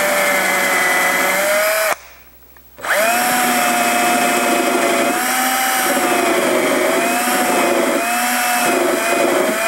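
Cordless drill running at slow speed, boring a countersunk pilot hole into plywood with a #8 countersink pre-drill bit. Its steady whine wavers slightly in pitch under load, stops about two seconds in, then starts again and runs on.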